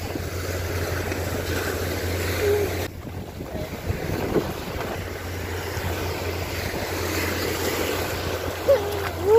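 Surf washing up on a sandy beach, a steady rush of breaking waves, with wind rumbling on the phone's microphone. A short voice is heard near the end.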